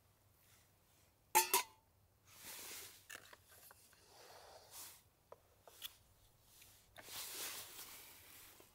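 Close handling noises: a sharp clatter with a brief ring about a second and a half in, then rustling and brushing sounds with a few small clicks.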